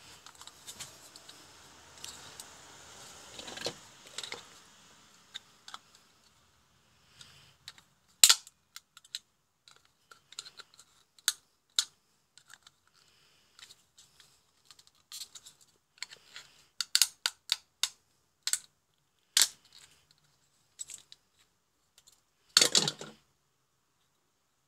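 Small plastic housing parts and circuit boards handled by hand: rustling for the first few seconds, then scattered sharp clicks and taps, with a louder burst of clicking near the end.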